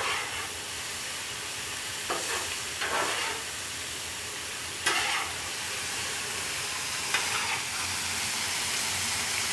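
Chopped vegetables sizzling on a hot Blackstone flat-top griddle, with a metal spatula scraping across the steel and turning them about five times.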